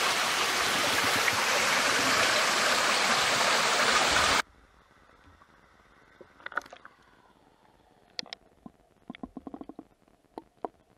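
Stream water rushing loudly at the microphone, cut off abruptly about four seconds in as the camera goes under the surface; after that it is very quiet with scattered faint clicks and knocks.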